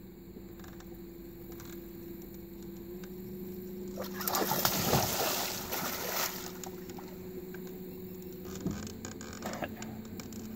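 A hooked alligator gar thrashing and splashing at the surface beside the boat, a loud burst of splashing about four seconds in that lasts around two seconds, with a few smaller splashes later. A boat engine idles steadily underneath.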